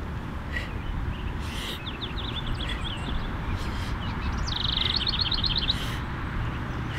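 Birds chirping over a steady outdoor background, one giving a fast trill about halfway through. Short, forceful breaths through the mouth come about once a second with each repetition of the leg-and-arm lift.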